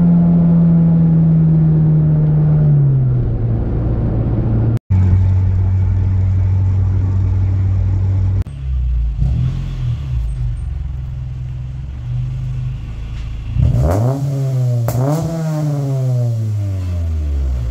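A 1997 Acura Integra GS-R's 1.8-litre four-cylinder VTEC engine through an aftermarket Yonaka exhaust. It first runs steadily while cruising, its note sinking as the throttle eases off, then settles to a low idle. Near the end it gives two quick revs that climb and drop back.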